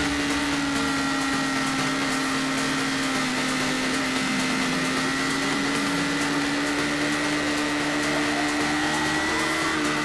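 Yamaha sport motorcycle's engine running at high, nearly constant revs while leaned through a long corner, with wind rushing over the fairing-mounted microphone. The pitch creeps up a little near the end.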